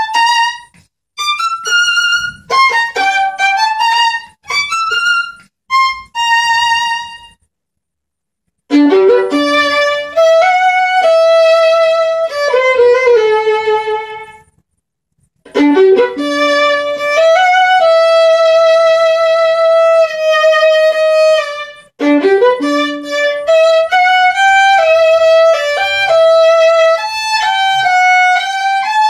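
Solo violin, bowed. It opens with short, separated notes and little pauses, then plays longer held notes with vibrato in flowing phrases, with two brief silences between phrases.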